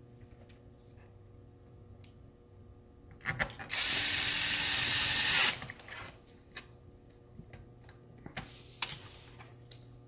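Cordless electric screwdriver motor running for about two seconds, with handling clicks and rattles before and after.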